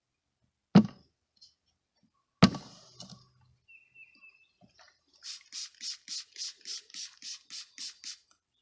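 Bee package handled for installation into a top-bar hive: two sharp knocks, then a scratchy rustle pulsing about four times a second for some three seconds near the end.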